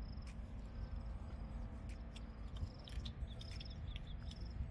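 Short high-pitched chirps, each a fraction of a second long, repeating roughly once a second over a steady low rumble, with scattered light clicks.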